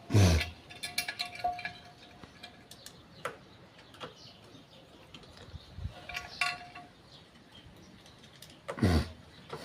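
Metal tools and parts being handled during motorcycle clutch work: a heavy knock near the start and another near the end, with sharp ringing metallic clinks between them.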